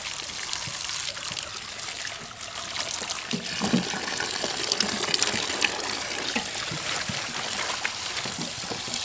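A stream of running water pouring into a metal basin of vegetables and splashing steadily, with small splashes as hands rinse enoki mushrooms and water spinach under it.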